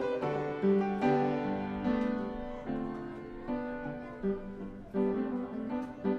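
Background music: gentle plucked guitar and piano playing a slow melody, notes struck about once or twice a second.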